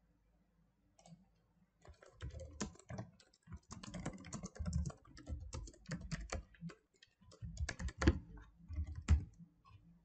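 Typing on a computer keyboard: a quick run of keystrokes that starts about two seconds in and stops shortly before the end.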